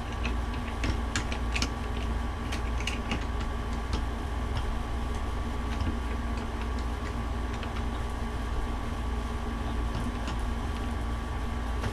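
Faint scattered ticks and clicks of small hand tools working at an iPhone's screen edge as it is pried open, over a steady electrical hum.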